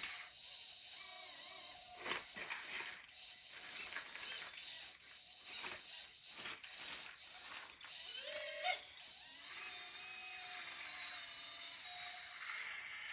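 1/14 scale hydraulic RC excavator working: its hydraulic pump runs with a steady high whine under scattered knocks and scrapes from the moving arm and bucket. About ten seconds in the sound grows louder with a fast pulsing, as the pump takes load.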